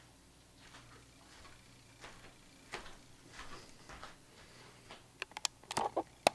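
Faint shuffling footsteps as a person moves away, then a quick run of sharp clicks and taps over the last second or so.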